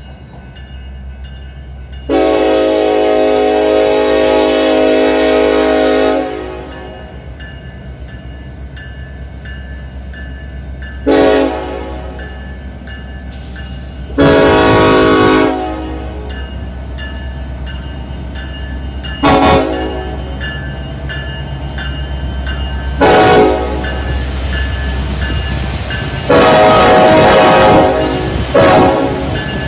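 Union Pacific diesel freight locomotive's air horn sounding seven blasts, each a chord of several tones: a long one of about four seconds starting about two seconds in, then a mix of short and longer blasts. Underneath is the steady low rumble of the locomotives and train, which grows louder near the end as the lead units pass.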